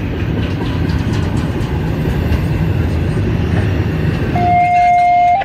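CSX intermodal freight train passing with a steady rumble. About four seconds in, a steady single-pitched wail starts over it: an outdoor tornado warning siren sounding for its test.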